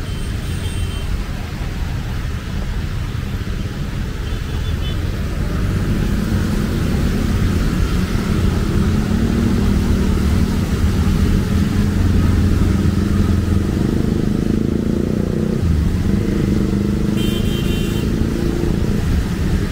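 Rainy city street traffic: car and motorcycle engines running close by, growing louder through the middle as vehicles pass, over a steady hiss of rain. A few short high tones sound near the end.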